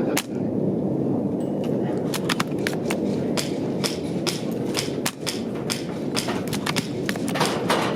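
Strong gusting wind buffeting the microphone, with many sharp irregular clicks and taps scattered through it.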